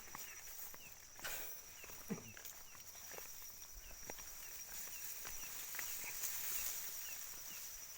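Night-time insect chorus: a steady high-pitched buzz with a short falling chirp repeating about twice a second, over scattered footsteps and rustling.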